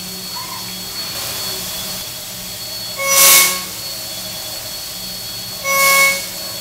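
CNC machine spindle face-milling metal with a 2-inch shell mill at high speed: a steady hum and hiss, with two louder stretches of cutting whine, about three seconds in and again near the end, as the cutter bites.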